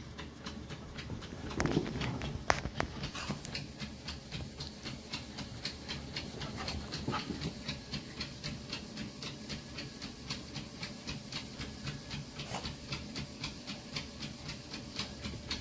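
A dog panting hard and fast, an even run of about four to five breaths a second. There are a couple of bumps or knocks from the dogs' play about two seconds in.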